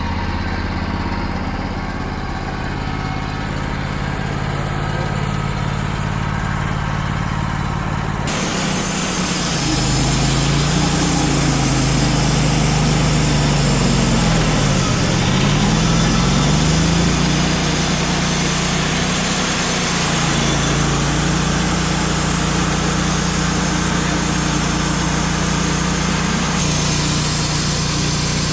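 An engine running steadily. The sound changes abruptly about eight seconds in, and from then until about seventeen seconds its tone slides down and back up before settling.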